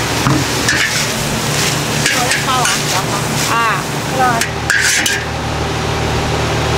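Metal spatula stirring and scraping in a wok with food sizzling, over a steady low hum. A brief louder hiss comes about five seconds in.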